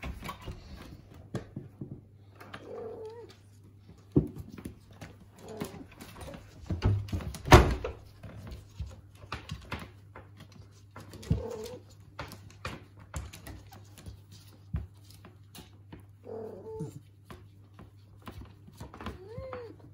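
Faint short animal cries from a dog and cat lying together, a few times, the last one rising then falling, among scattered knocks and rustles of movement, with one loud thump about seven and a half seconds in. A low steady hum sits underneath.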